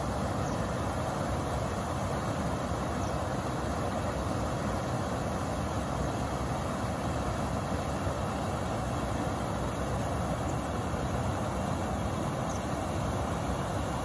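Water pouring over a low weir across a stream, a steady rushing noise with no breaks.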